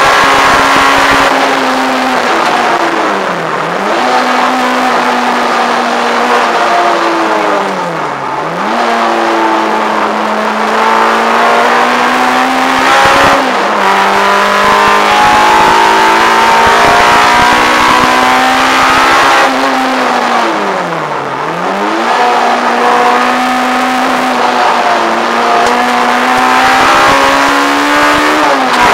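Peugeot 106 GTi's 1.6-litre 16-valve four-cylinder, breathing through Jenvey individual throttle bodies, running hard at high revs from inside the cabin. The revs fall and climb back about four times through the corners, with a quick gear change near the middle.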